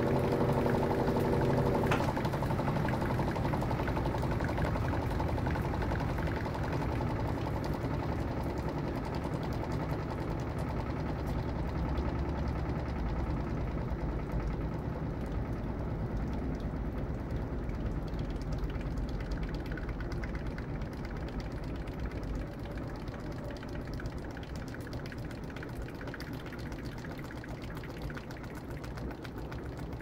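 Electrolux Turbo Capacidade Premium 13 kg (LM13Q) top-load washer spinning its basket in the spin between wash and rinse. A steady hum stops with a click about two seconds in, and the spinning drum's rumble then goes on, slowly growing quieter.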